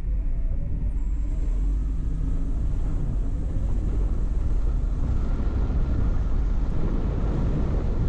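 Car being driven, a steady low rumble of road and engine noise.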